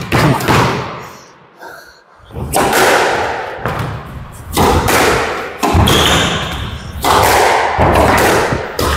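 A squash rally: the ball is hit again and again by rackets and smacks off the court walls, a run of sharp, irregular thuds with echo in the enclosed court.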